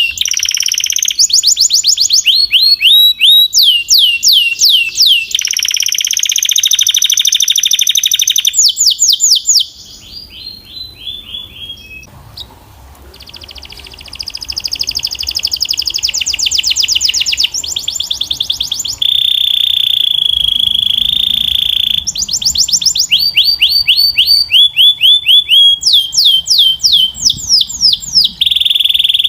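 Canary singing: fast trills of quickly repeated falling notes and held high whistled tones, changing to a new phrase every few seconds, with a softer, quieter passage about a third of the way in.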